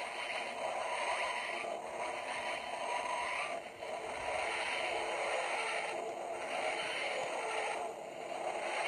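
Flight Control TARDIS toy playing the TARDIS materialization sound effect through its small speaker, triggered by setting the toy on a flat surface. It is a warpy whooshing that swells and fades about four times, roughly every two seconds.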